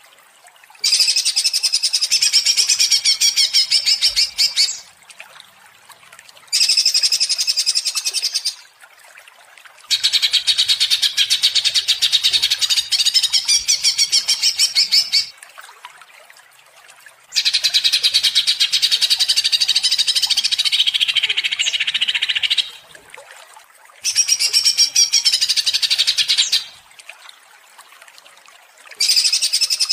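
Greater green leafbird (cucak ijo) singing in worked-up, full song, a fast, high, chattering run of notes. The song comes in bouts of about two to five seconds with short pauses between them: five bouts, and a sixth starting near the end.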